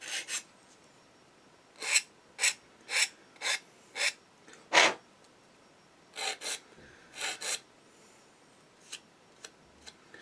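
Hand sanding stick rasping across the freshly sawn edge of a plastic part from an Eduard 1:48 Spitfire kit, cleaning off the fluffy burrs left by the saw. About a dozen short strokes with pauses between them, fading to a few light scrapes near the end.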